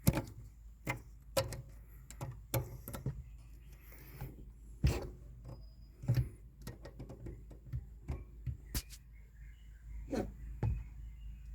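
Scattered light clicks and knocks, irregular, as a plastic brake-light switch is handled and pressed into its bracket behind the brake pedal, over a faint low hum.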